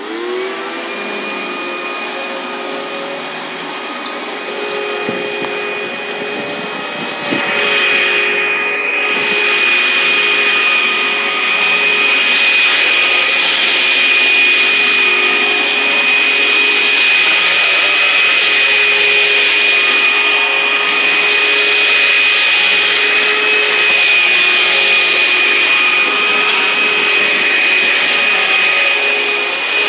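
Sanitaire Quiet Clean vacuum cleaner switched on, its motor whine rising as it spins up, then running steadily with a high whine over a lower hum. It grows louder about seven seconds in and stays steady after that.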